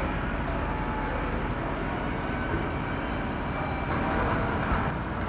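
Steady, even mechanical drone from the crane-equipped service truck as it runs, getting slightly louder about four seconds in.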